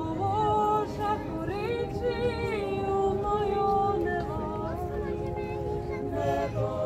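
Women's vocal ensemble singing a cappella, several voices holding notes together in harmony with a light vibrato.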